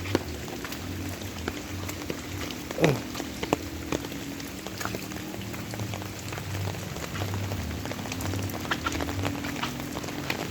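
Steady rain falling, with scattered drops ticking sharply on nearby surfaces.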